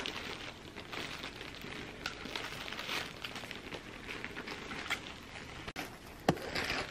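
Plastic poly mailer bags crinkling and rustling as ferrets dig at, climb on and tug them, with small irregular crackles.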